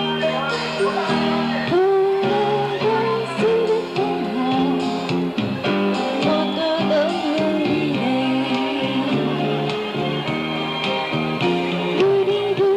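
A woman singing a melody into a handheld microphone over instrumental accompaniment, her held notes wavering with vibrato.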